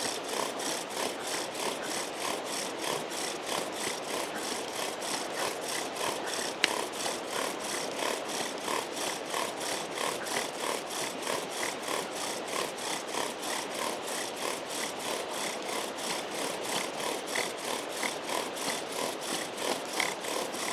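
Bow drill at work: a wooden spindle driven back and forth by a bow, grinding in a wooden hearth board with an even rhythm of rasping strokes. It is drilling steadily for an ember. There is one sharp click about six seconds in.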